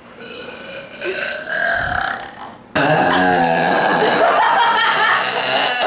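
A girl's long, loud forced belch. It starts abruptly about halfway through and draws out for about three seconds. It is disputed straight after as not a real burp.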